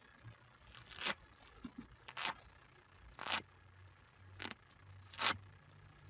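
Velcro hook-and-loop fastener being pulled apart in short rips, about five of them roughly a second apart: the grip, grip sound of the tiny hooks tearing free of the loops.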